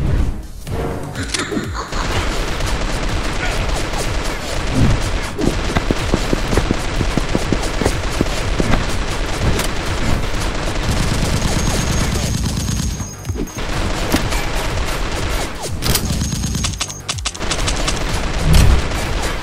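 Rapid, near-continuous gunfire-like shots firing in a dense stream, with a brief break about thirteen seconds in.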